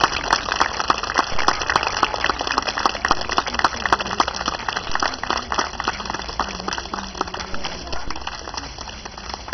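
Audience applauding, the clapping dense at first, then thinning and fading away.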